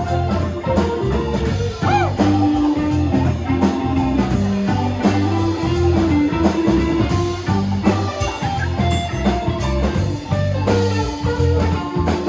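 Live rock band playing without vocals: electric guitar with bending, held notes over bass and drum kit.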